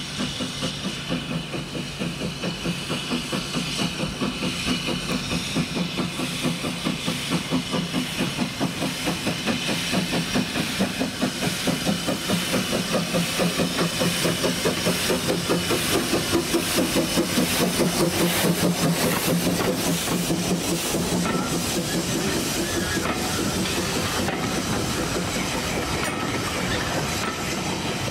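Manning Wardle L class saddle-tank steam locomotive working a train, its exhaust chuffing in a steady rhythm over a hiss of steam. It grows louder as it approaches and passes close by, and near the end the carriage rolls past.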